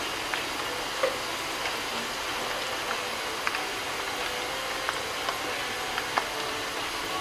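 Cubes of tofu deep-frying in hot oil in a wok: a steady sizzle with scattered sharp pops of spattering oil, about one every second or two.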